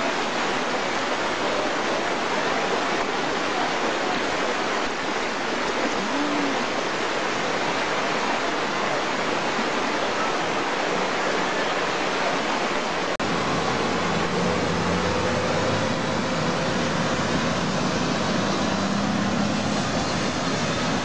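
Fast-flowing floodwater rushing steadily across a road. After an abrupt cut about two-thirds of the way in, a heavy truck's engine runs steadily over the water noise as the truck drives through the flood.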